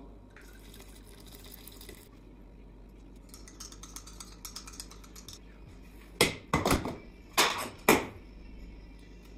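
Quiet handling and pouring into a stainless steel mixing bowl, then four sharp metallic clunks in quick succession from about six seconds in as the bowl is set into the stand mixer and the mixer head is brought down over it.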